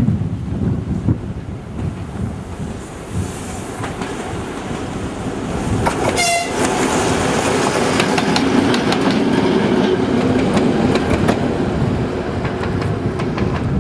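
PKP Cargo ST44 diesel locomotive with its train passing: a short horn blast about six seconds in over the engine's low rumble, then wheels clicking over rail joints as the train goes by.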